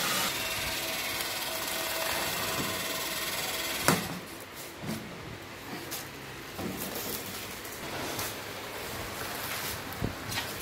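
Stretch-film wrapping machine running steadily as it winds clear plastic film around a bale of fishing net. It stops with a sharp clunk about four seconds in, followed by scattered crinkling and rustling of the plastic film as the wrapped bale is handled.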